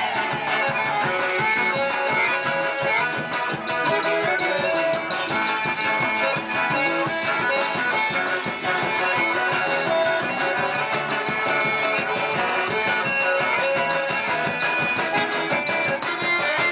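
Live forró band music, an instrumental passage without singing: held melody notes over a steady percussion beat.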